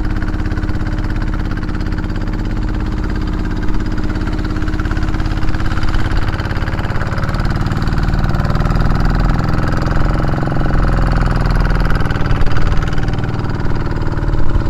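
Outrigger fishing boat's engine running steadily under way, with wind and waves washing against the hull in rough seas; it grows somewhat louder about halfway through.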